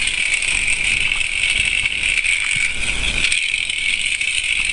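Small electric motor and plastic gears of an OWI salt-water fuel cell toy car whining steadily as the car drives along, the motor running on current from its magnesium and salt-water cell.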